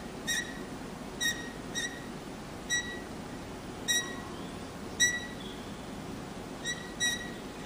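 Classical guitar strings bowed with a bow, giving about eight short, high squeaking notes, all on the same pitch, at uneven intervals.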